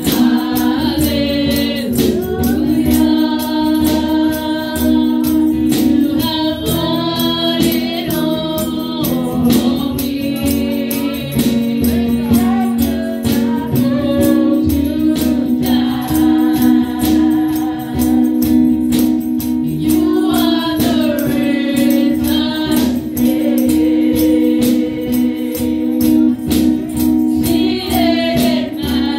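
Live gospel worship song: a woman leads on an amplified microphone with backing singers joining in, over a held instrumental chord and a steady tambourine-led beat.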